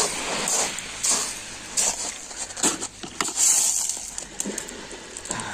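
Footsteps crunching on loose beach pebbles, a few irregular steps a second, over a steady hiss.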